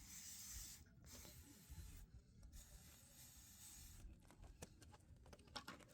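Aerosol chain cleaner sprayed onto a motorcycle's inner sprocket and chain in a few faint hissing bursts with short breaks between them, followed by light scratchy rubbing.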